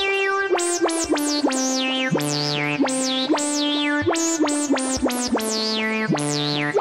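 Sampled Jupiter-4 synthesizer (J4 Kontakt library) playing a quick repeating sequence of notes over sustained lower notes. Each note has a resonant filter sweeping down from bright to dull.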